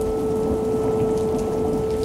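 Synthesized outdoor warning siren holding one steady tone, the steady alert sounded for a tornado warning, over a continuous patter of rain.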